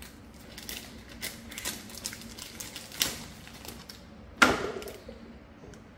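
Cellophane wrapping being pulled off a perfume box and crinkled: a run of small crackles and clicks, with a sharper crackle about three seconds in and a loud one a little after four seconds.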